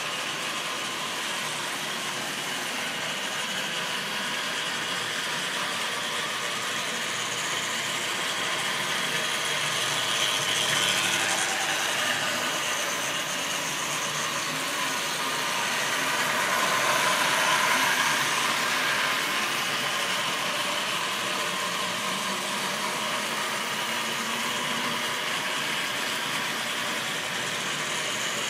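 Model railway trains running: a steady mechanical whirr and clatter of small electric locomotive motors and wheels on the track. The sound swells twice, about a third and about two thirds of the way in, as a train of tank wagons passes close by.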